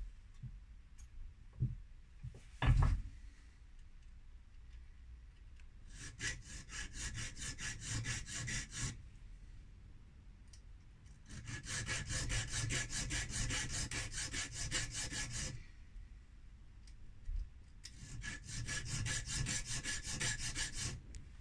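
Thin knife-edge file drawn in quick strokes across the metal mill wheel of a pepper mill, recutting its worn grinding grooves to sharpen it. The filing comes in three bouts, with a couple of short knocks in the first few seconds.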